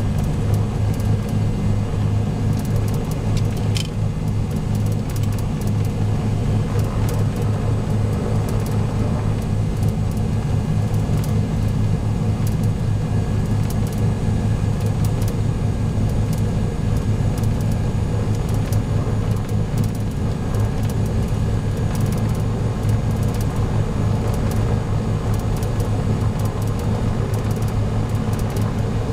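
Twin-engine Cessna's piston engines running at low taxi power: a steady, even drone heard from inside the cockpit.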